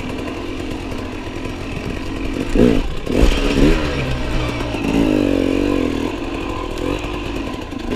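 Enduro dirt bike engine running while ridden off-road, its pitch rising and falling as the throttle is blipped, with a brief higher rev about halfway through.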